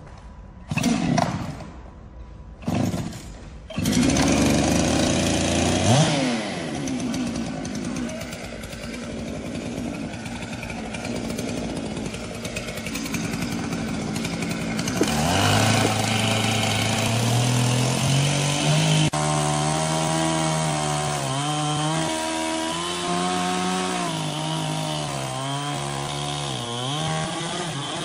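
Husqvarna two-stroke chainsaw pull-started: two short bursts as it catches briefly, then it fires and runs, revving. Later it cuts into a large hardwood log, its engine pitch dipping and rising under load.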